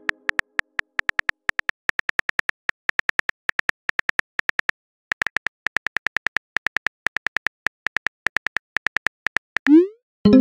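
Phone keyboard typing sound effect: a rapid, even run of short tapping clicks, about six or seven a second, with a brief pause about halfway through. Near the end comes a quick rising whoosh as the message is sent.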